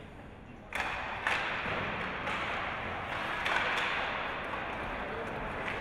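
Ice hockey rink sounds during play: noise rises suddenly under a second in, with a handful of sharp knocks scattered through it.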